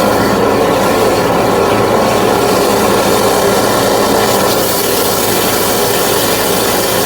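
Engine-driven high-pressure drain jetting machine running steadily, its water jet blasting through the drain line; the high hiss gets brighter about halfway through.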